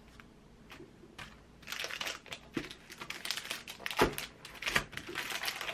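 Plastic wrapping on new diaries crinkling as they are handled, starting about a second and a half in, with two knocks of the books against the table near the end.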